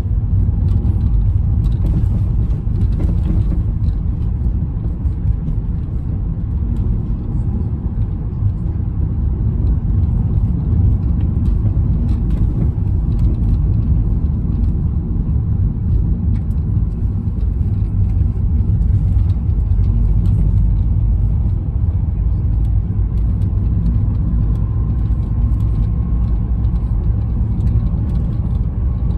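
Car driving along a road, heard from inside the cabin: a steady low rumble of engine and tyres on the road surface.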